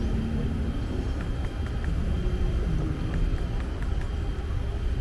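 Steady low outdoor rumble, with a few faint short ticks about a second and three seconds in.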